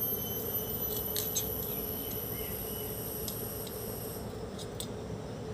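A few small clicks as hands twist a battery's bare wire leads onto a small circuit board. Under them run a steady low hum and a thin high-pitched whine that stops about four seconds in.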